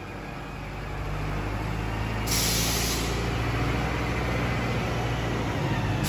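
Silage packaging machine running: a steady low motor hum with mechanical clatter, growing louder over the first two seconds, and a sudden burst of air hissing about two seconds in that fades away.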